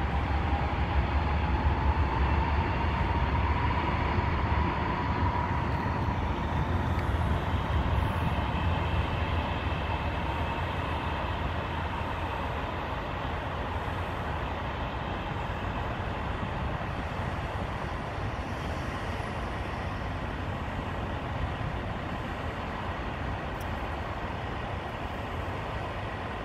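Double-stack intermodal freight train rolling along the main line, with a steady rumble of wheels on rail that slowly fades as the train moves away. A thin squeal rises slightly in pitch over the first few seconds.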